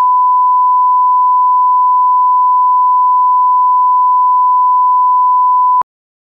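Colour-bar test tone: a single steady, loud, pure beep that cuts off suddenly near the end.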